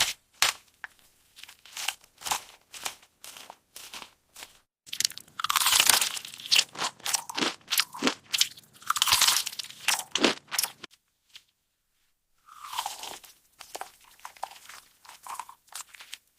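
A baby chewing and crunching fruit: many short, crisp crunches with a few longer chewing stretches, and a brief pause.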